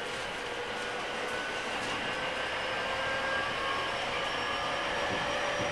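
JR 205 series 5000 subseries electric train with Toyo IGBT VVVF traction equipment, heard from on board while running. Steady rail and running noise, with a motor and inverter whine made of several tones that drift slowly in pitch.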